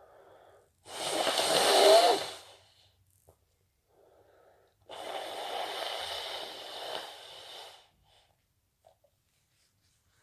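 A person sneezing and breathing hard through a tickling nose. A loud breathy burst builds to a peak about two seconds in, then a steadier breathy sound lasts about three seconds.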